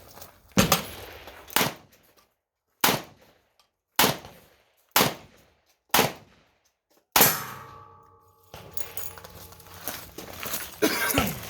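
Revolver shots fired at an even pace, about seven reports roughly a second apart. A metallic ringing lingers after the last shot.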